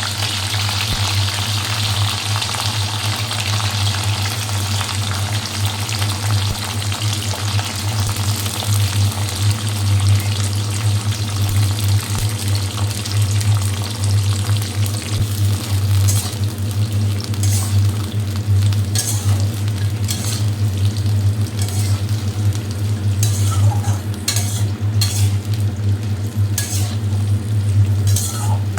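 Chopped drumstick (moringa) pieces sizzling as they fry in hot oil in a kadai while being stirred. From about halfway through, the spatula clicks and scrapes against the pan. A steady low hum runs underneath.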